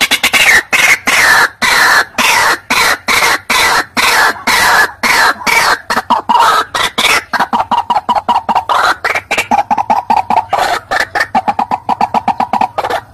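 White-breasted waterhen (ruak-ruak) calling: a loud, rapid run of harsh, repeated croaking notes that slide down in pitch, settling after about eight seconds into a fast, even series of shorter notes.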